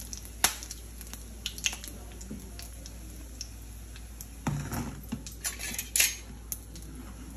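Metal utensils clinking and knocking against pots and bowls: several sharp, separate clicks, with a duller knock about four and a half seconds in.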